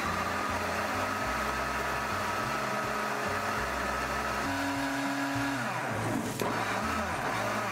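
Electric countertop blender running steadily, puréeing vegetables for a soup.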